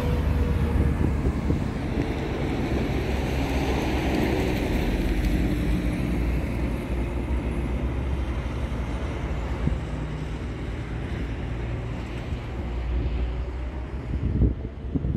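Highway traffic noise, with a vehicle passing a few seconds in, and wind buffeting the microphone with a heavy low rumble.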